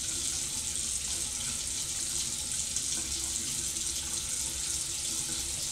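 Running water hissing steadily, as from a shower or tap, with no change in flow.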